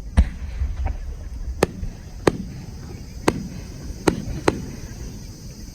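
Fireworks shells bursting overhead in a quick series: six sharp bangs and one fainter one over about four and a half seconds, each followed by a low rumbling echo.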